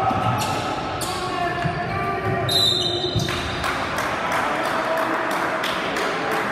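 A ball bouncing on a hard gym floor amid voices echoing in a large hall, with a short high-pitched tone about two and a half seconds in.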